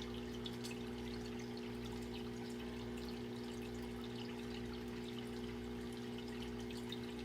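Steady hiss with a constant low electrical hum and faint scattered crackles.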